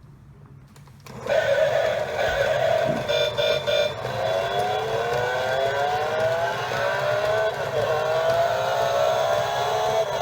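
Car-themed alarm clock playing its recorded V8 engine alarm sound: an engine starting suddenly about a second in, then revving up in repeated rising sweeps.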